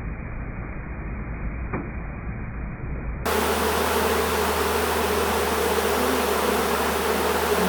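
Honeybees from a disturbed colony buzzing as a loud, steady hum, agitated and not happy. The buzzing starts abruptly about three seconds in, after a stretch of muffled, low noise.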